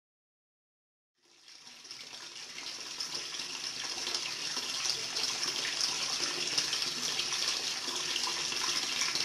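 Water pouring from a bamboo spout and splashing over hands, fading in after about a second of silence and growing louder.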